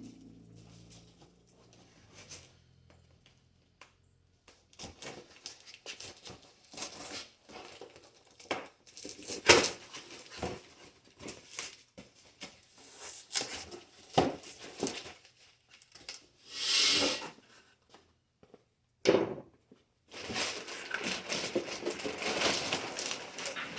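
A package being opened and unpacked by hand: packaging tearing and crinkling, with scattered knocks and clicks of things being handled. There is a longer tear about two-thirds of the way through, then steady rustling near the end.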